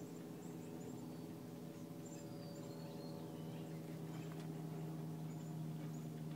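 A steady low hum with several overtones, and faint short bird chirps and whistles high above it.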